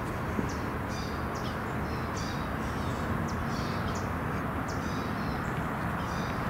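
Small birds chirping in short repeated calls over a steady low rumble.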